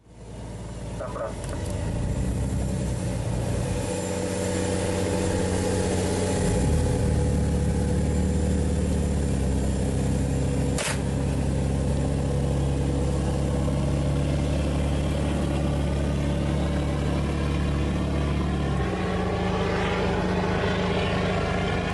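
Patrol boat's engines running at speed, a steady low drone under a rushing noise of wind and water. The engine note shifts about six seconds in, and the drone drops away near the end, leaving the rush. A single sharp click sounds about eleven seconds in.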